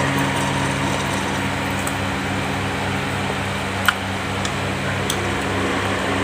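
Steady motor hum of a room fan running, with a few light clicks of eating over it, the sharpest about four seconds in.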